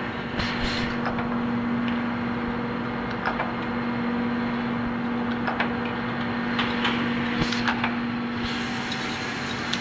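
Steady hum of a UV curing conveyor unit on a bottle screen-printing line, with scattered light clicks and knocks as glass bottles are handled on the belt.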